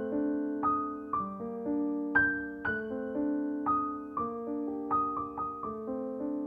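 Background music: solo piano playing a slow piece, notes and chords struck every half second or so and left to ring.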